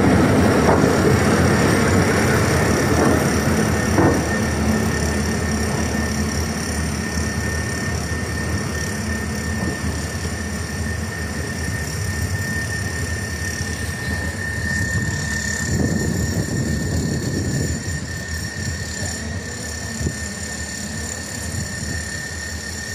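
Train at a station: a steady low rumble with a thin high whine over it, and one knock about four seconds in.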